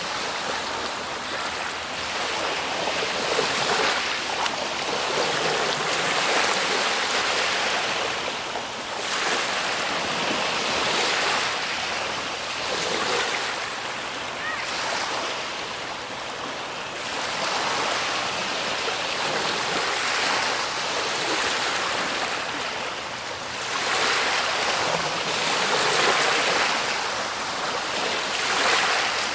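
Ocean waves breaking and washing on a shore, the surf rising and falling in broad swells every few seconds.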